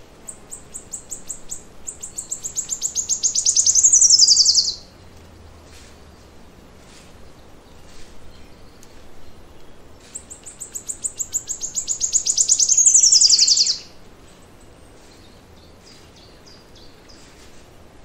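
A forest songbird singing twice, about ten seconds apart. Each song is a high, rapid trill that speeds up and grows louder for about four seconds, then ends in a quick falling flourish. Faint distant chirps fill the gaps.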